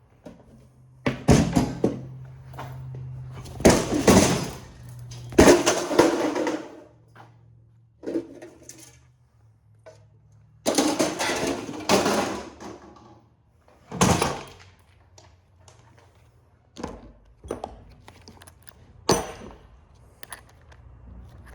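Metal parts of a printer clanking and banging as they are pried loose and handled, with several loud clattering bursts in the first half and smaller knocks near the end.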